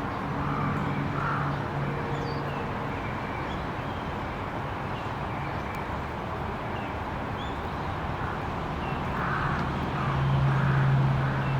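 Steady outdoor background noise with a low drone that swells near the end, and a few faint, short high chirps.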